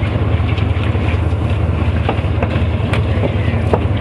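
Steady low rumble of a sport-fishing boat's engine running, with wind buffeting the microphone, and a few light knocks and clicks on deck in the second half.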